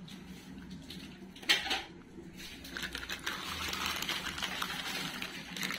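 Stainless steel kitchen containers being handled: a single knock about one and a half seconds in, then light clinking and rustling.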